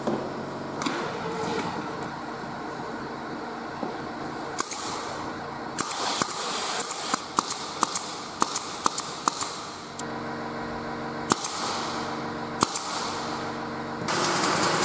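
Pneumatic nail gun firing nails into plywood: sharp single shots, with a quick run of about a dozen in the middle. A steady mechanical hum runs underneath, and a louder steady noise comes in near the end.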